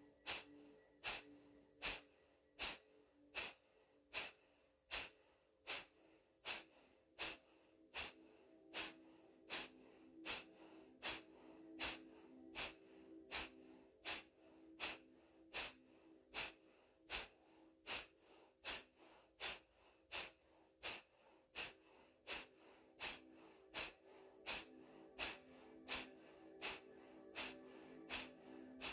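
Kapalabhati breathing: rapid, forceful exhalations through the nose, each a short sharp puff, in an even series of close to two a second.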